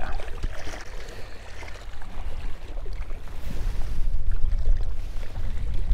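Wind buffeting the microphone as a steady low rumble over open water, with a few faint knocks and rustles.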